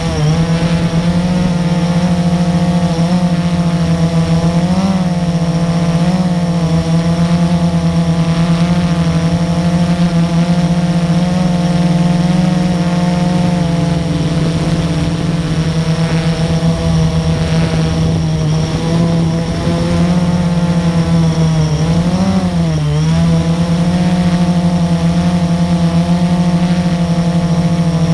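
The four brushless motors and propellers of a Blade 350QX quadcopter, heard close up from the camera mounted on it: a loud, steady buzzing hum that wavers in pitch a few times as the rotor speeds change while it manoeuvres, with a clear dip and rise in pitch about 22 seconds in.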